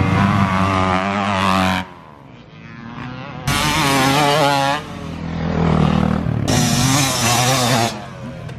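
Dirt bike engines revving and accelerating hard in a string of separate passes, each starting and stopping abruptly, with the pitch rising and falling as the throttle works.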